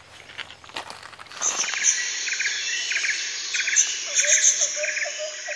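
Insects chirping in evenly spaced trilled pulses, a little under two a second, over a steady high insect hiss, starting about a second and a half in after a few faint clicks.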